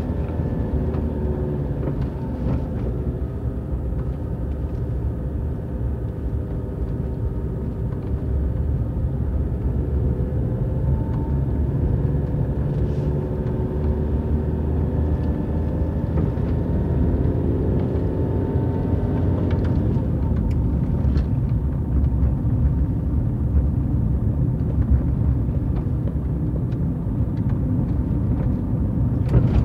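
Car engine and tyres while driving along a narrow country road, a steady low rumble with the engine note drifting up and down as the speed changes, and a few light knocks.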